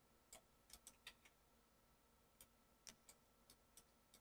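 Faint, irregular clicks of a computer mouse and keyboard, about a dozen scattered through near silence.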